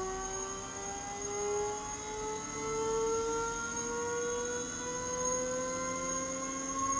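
Electric motor running with a steady whine whose pitch climbs slowly and evenly, over a constant high-pitched tone.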